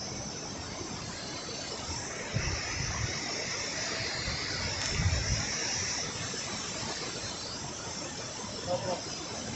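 Steady rushing noise of a waterfall, with two low thumps about two and a half and five seconds in.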